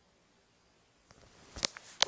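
Near silence for about a second, then a few faint clicks and one sharp knock near the end: handling noise from the recording phone.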